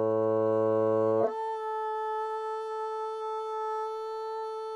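Solo bassoon slurring from its low A up two octaves to the high A, about a second in, then holding the high A steadily. It is played with firmer air support and a tall 'O' vowel shape in the mouth, meant to put the high note in tune with a better tone.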